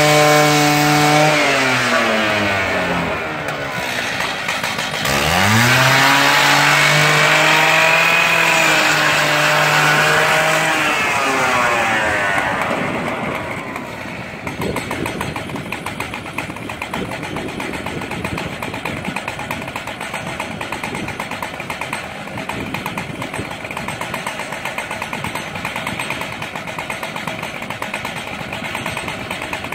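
Two-stroke chainsaw powerhead of an M6 Turbosawmill running at high revs. It drops off about a second in, revs back up about 5 s in, and falls again near 11 s. From about 12 s it settles into a rough, rapidly pulsing idle.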